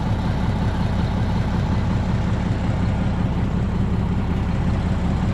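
A heavy truck's diesel engine idling, with a steady, even low sound.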